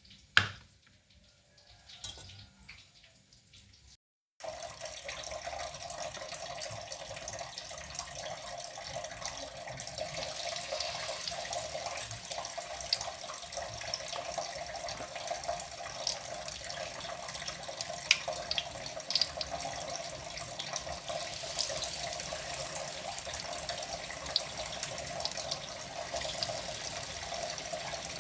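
Water running steadily from a tap into a kitchen sink, with small clicks and splashes. It comes in abruptly about four seconds in, after a near-quiet stretch with a sharp knock at the start and a lighter one about two seconds later.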